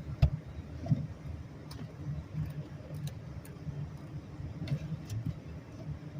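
Vehicle engine running steadily with a low, fluttering drone and scattered light clicks; two sharp knocks come within the first second.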